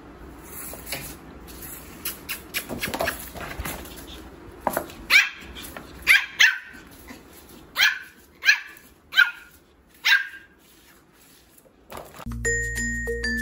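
Pomeranian puppy giving about eight short, high-pitched barks over some five seconds, singly and in quick pairs, each one dropping in pitch. These are a young puppy's first barks, only just begun.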